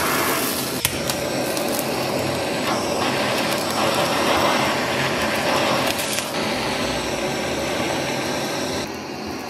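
Handheld gas blowtorch hissing steadily as its flame singes the hairs off a raw pork knuckle's skin, with a few small clicks, one sharper about a second in.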